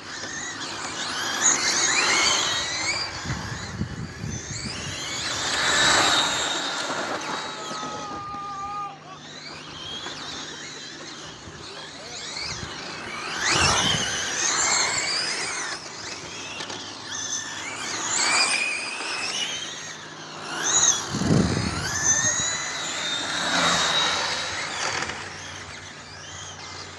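Several 1/8-scale electric GT RC cars racing, their brushless motors giving a high whine that rises and falls in pitch as they speed up and slow down, swelling as cars pass close every few seconds.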